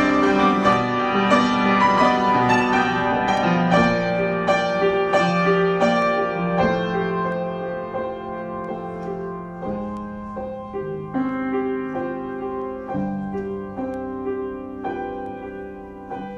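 Solo piano improvisation: struck notes and chords, growing gradually quieter.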